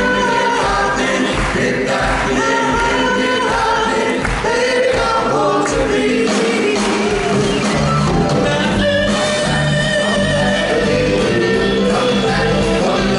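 Doo-wop vocal group singing live in close harmony over instrumental backing, with the low bass notes stronger from about eight seconds in.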